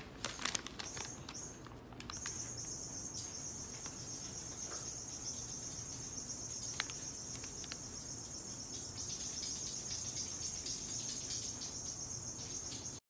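Paper bag crinkling as it is set over a cat's head, then, from about two seconds in, a steady high-pitched insect-like chirring.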